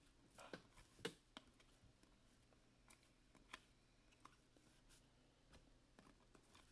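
Near silence with a few faint, short clicks of glossy Optic basketball cards being slid and flicked through in the hands, most of them in the first second and a half and two more a little later.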